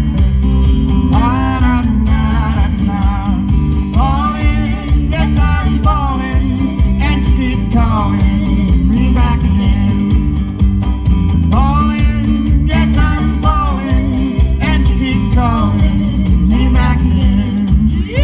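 A live band playing, with guitar and a steady bass under a lead melody that comes in phrases a second or two long.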